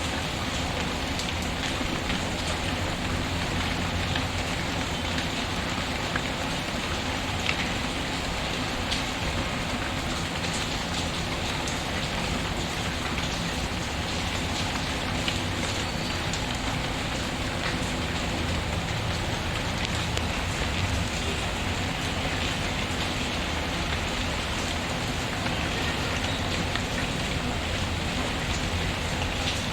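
Steady rain falling, mixed with the scattered small crackles of a wood fire burning in a fireplace.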